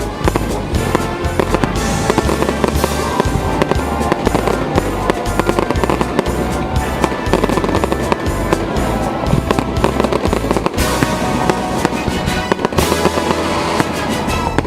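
Holiday fireworks salute: rapid crackling and popping of bursting shells, with music with a heavy bass line playing at the same time.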